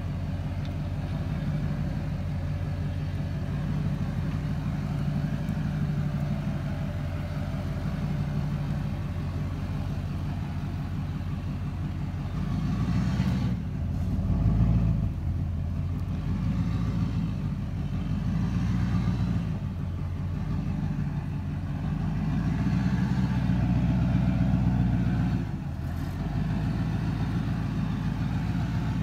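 Engine of a dump truck loaded with crushed stone, running as the truck creeps forward slowly over a soft, muddy dirt track. The engine gets louder twice, about halfway through and again near the end, as it works harder.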